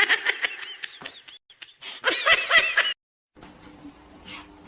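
Rapid, high-pitched squeaks from a small animal, in two runs, with the second run louder. The sound cuts off suddenly about three seconds in.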